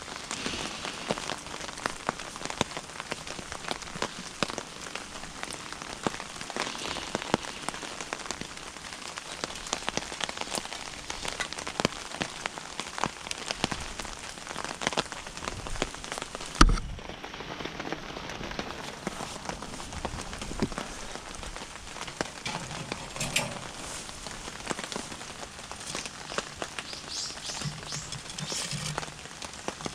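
Wood and charcoal fire crackling and popping in a small cooking stove, with irregular sharp snaps over a low steady hiss. A single heavier thump comes about 17 seconds in.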